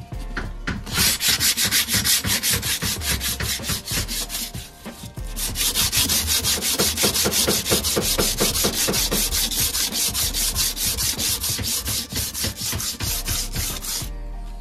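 Sandpaper on a hand sanding pad rubbed in quick back-and-forth strokes over a chrome-plated aluminium car wheel rim, scuffing the chrome down to a rough surface, with a brief pause about four seconds in.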